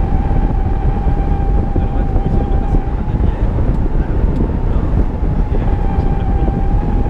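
Loud, steady wind rushing over the microphone of a camera mounted on a hang glider in flight, with a thin steady whistle on top.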